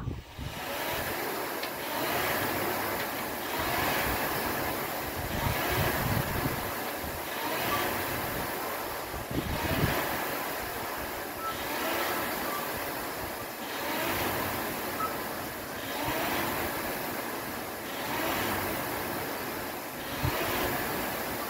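Rowing machine's flywheel whirring in a surge with each stroke, about one stroke every two seconds.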